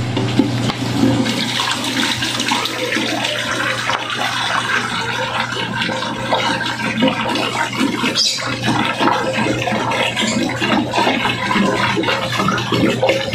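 Water poured from a large plastic jug into an empty glass aquarium, the stream splashing steadily onto the bare glass bottom as the tank begins to fill.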